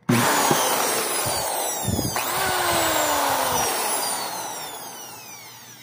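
Lutos corded impact drill's motor switched on with the trigger and running at full speed. It falters briefly about two seconds in, then winds down with falling pitch after the trigger is let go. It is running again after repair of its trigger (controller) switch and cleaning of the contacts.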